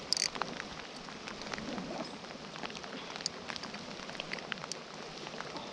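Creek water rushing steadily over rocks, with scattered small clicks.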